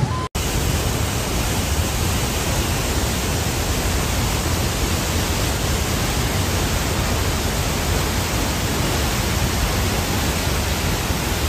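Steady, loud rush of the Blue Nile Falls in flood, brown water pouring over the cliff, starting after a very short break about a third of a second in.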